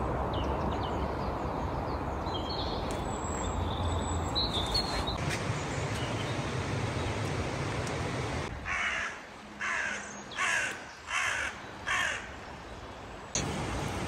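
River water rushing steadily for the first half. Then a crow caws five times, harsh calls about two-thirds of a second apart.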